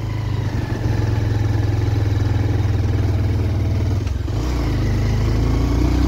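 Motorcycle engine running under load on a steep uphill climb. About four seconds in its sound breaks off briefly, then its pitch rises slowly.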